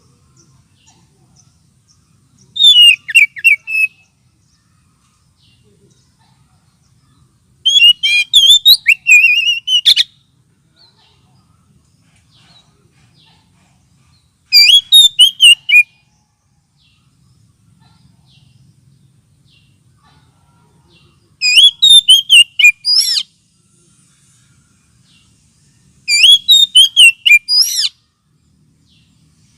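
Oriental magpie-robin (kacer) song in five loud bursts of rapid, high whistles and chirps, each one to two seconds long, with pauses of a few seconds between them. This is a lure call of the kind bird keepers play to stir up a magpie-robin.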